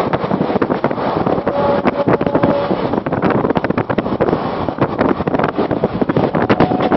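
Express train running at speed, heard from an open coach window: wind buffeting the microphone over the steady rumble and clatter of the wheels on the rails.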